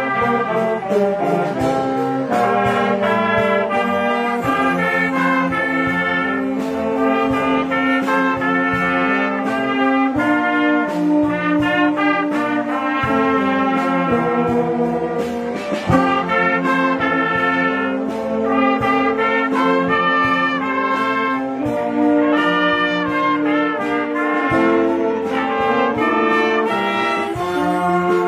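A school band led by trumpets and other brass plays a tune in held and moving notes over a steady beat.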